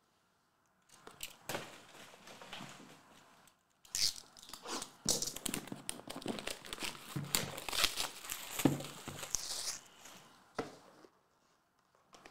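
Plastic shrink wrap being picked at, torn and crinkled off a sealed trading-card box: a run of crackling rustles starting about a second in, densest in the middle, ending in a few separate clicks.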